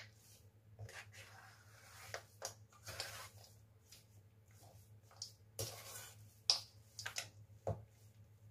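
A metal spoon scraping and clinking against a stainless steel mixing bowl while working thick chocolate cookie dough, in irregular strokes, with a few louder scrapes about five to eight seconds in. A faint steady hum lies underneath.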